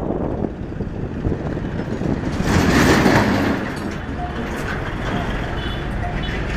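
Motorcycle riding along a road: the engine runs steadily under wind and road noise, with a louder rush of noise for about a second around three seconds in.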